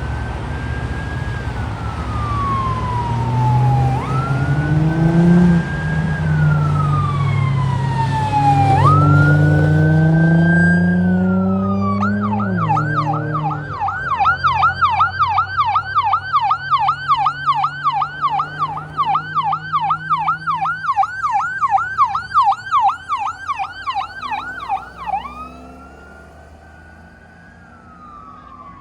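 Ambulance electronic siren running on a slow wail, then switching about twelve seconds in to a rapid yelp of about three cycles a second, then dropping back to a wail as it fades near the end. Beneath the wail the vehicle's engine climbs in pitch, with two sudden drops as it shifts gear.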